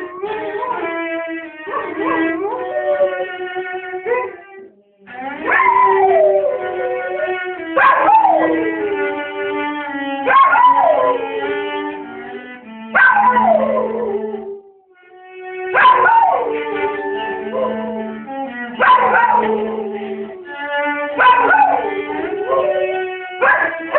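A dog howling along to a cello being played: about ten long howls, each starting high and sliding down in pitch, every two to three seconds over the cello's held low notes.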